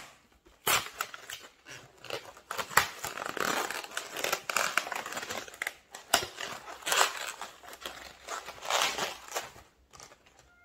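Latex modelling balloon being twisted and handled into a bow, the rubber rubbing and squeaking in irregular spurts.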